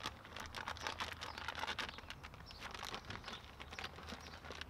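Grain spawn poured from a plastic bag onto the cut top of a hardwood log: a faint, irregular patter of many small ticks as the grains land, with soft crinkling of the bag.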